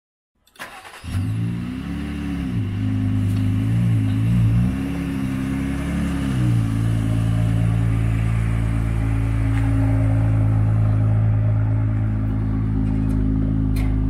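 Jeep Wrangler Rubicon engine running, revved up and back down a few times in the first half, then idling steadily.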